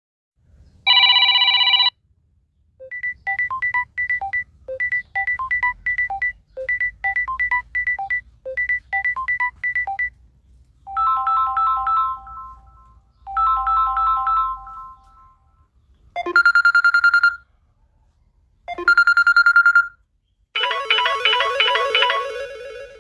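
A series of different mobile phone ringtones played one after another with short gaps: a brief buzzy tone, a repeating beeping melody, two chime phrases, two short ringing bursts, then a faster melody near the end.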